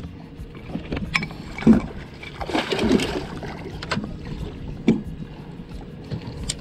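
Hooked catfish thrashing at the surface beside a boat's hull, splashing the water, with the biggest splash about two and a half seconds in. A few sharp knocks come between the splashes.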